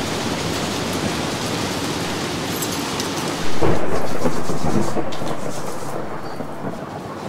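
Heavy rain with thunder. About three and a half seconds in a loud clap of thunder breaks over the rain and rumbles away over the next few seconds.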